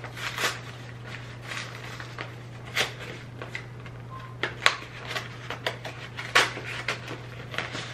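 Paperboard snack-cake box being torn open and handled: irregular crinkles, crackles and small tears of the cardboard, a few sharper snaps among them.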